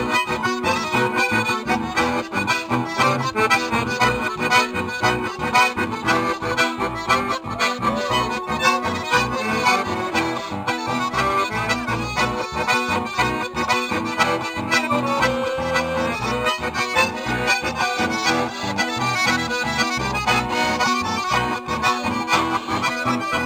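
Live acoustic folk music: two accordions carrying the melody over two strummed acoustic guitars, played together at a steady beat.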